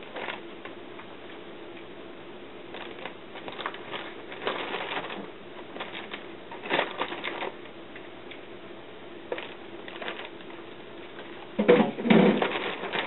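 Plastic zip-top bag crinkling and rustling in short irregular bursts as slices of raw beef are handled and pushed into it, loudest near the end.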